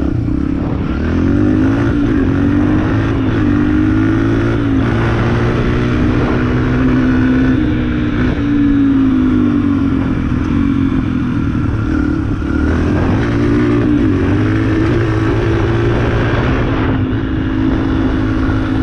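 Yamaha dirt bike engine running under way, its pitch rising and falling several times as the throttle opens and closes.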